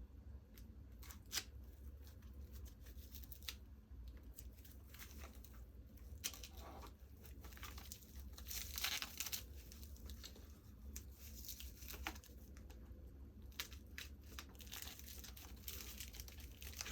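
Faint rustling and crinkling of packaging being handled and pulled apart, with scattered small clicks and knocks; the rustling grows busier about halfway through.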